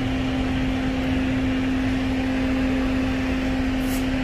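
Steady machine hum from a fan or motor running, holding one constant low tone over an even whir, with a brief faint rustle near the end.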